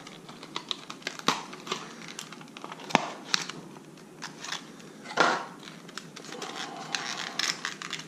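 Plastic and cardboard lure packaging being pried open and handled: crinkling and crackling of clear plastic with scattered sharp clicks, the loudest snap about three seconds in.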